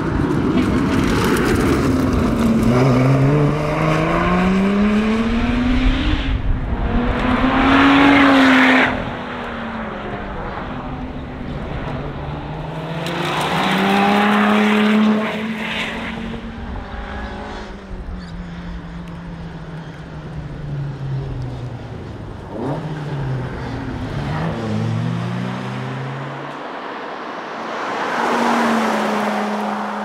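Lotus Exige Sport 350's supercharged 3.5-litre V6 accelerating hard past the roadside, its pitch climbing through each gear and dropping at every upshift. It comes as several separate passes, loudest about a quarter of the way in and again near the middle.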